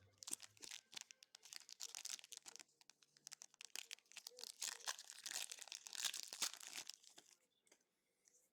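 Crinkling and tearing of a foil trading-card booster pack wrapper being handled, a dense run of crackles that stops about seven seconds in.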